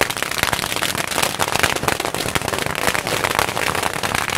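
A string of firecrackers going off in a rapid, unbroken rattle of sharp bangs.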